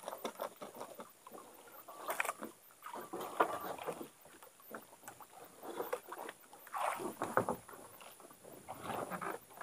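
Water slapping and lapping against the hull of a small boat, in irregular splashes.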